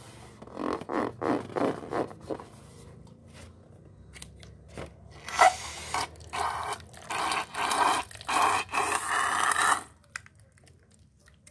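Slime being squeezed through and out of balloons, squelching and crackling in a run of short bursts, then a denser run of longer squelches after a pause of a couple of seconds.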